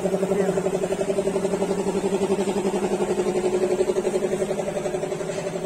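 An engine idling steadily, a low hum with a fast, even chugging pulse.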